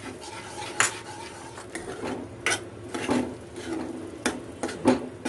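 Steel spoon stirring thick sauce and vegetables in a stainless steel kadhai, with irregular scrapes and clinks of metal on the pan about once a second.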